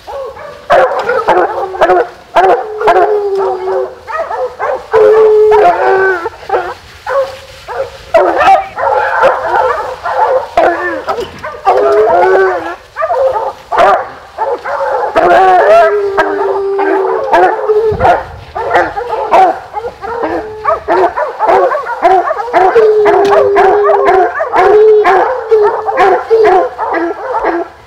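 A pack of bear hounds baying in chorus, long drawn-out howls overlapping with short choppy barks, continuous and loud. It is the sound of hounds holding a black bear at bay on the ground.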